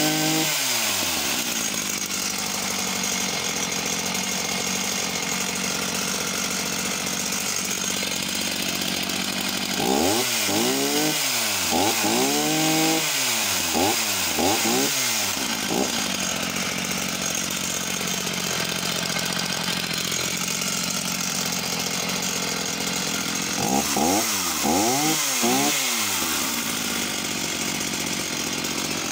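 Old Husqvarna two-stroke chainsaw, thought to be a 162SE, idling with the choke off and blipped through quick revs in three bunches: at the start, several over a few seconds around the middle, and a few more near the end.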